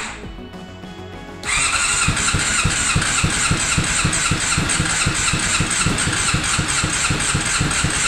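Honda CBR600's inline-four being cranked on its electric starter, chugging at about five even pulses a second over a steady whine without catching. The starter lets off at the start and cranks again about a second and a half in.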